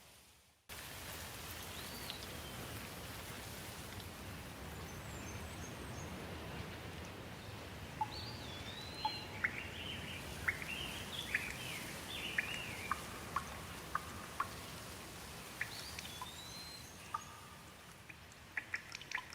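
Steady rain falling on leaves, cutting in suddenly after a moment of silence, with birds calling in short rising and falling whistles, busiest in the middle. Scattered sharp ticks grow more frequent near the end.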